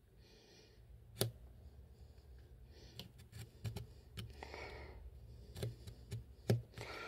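Opinel knife blade cutting lengthwise into a wooden matchstick on a cutting mat, splitting the match in two: a string of scattered sharp clicks, about half a dozen, as the blade catches and presses through the wood.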